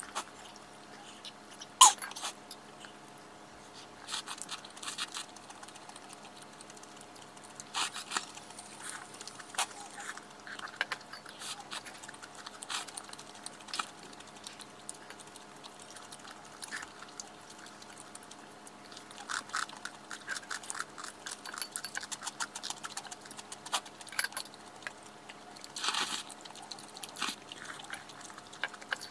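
Close-up mukbang eating sounds: chopsticks clicking against a ceramic plate, with chewing of malatang noodles and crispy guobaorou. A sharp knock comes about two seconds in, and a faint steady hum runs underneath.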